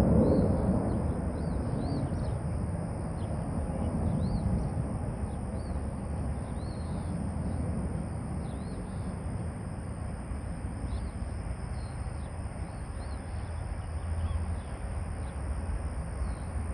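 Distant jet rumble from the Blue Angels' F/A-18 Hornets, loudest at the start and slowly fading as they move away, while small birds chirp over it.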